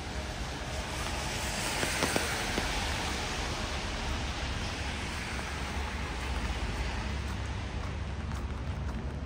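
Steady rain hiss on a wet city street, with a car's tyres hissing on the wet road as it passes, loudest about two seconds in.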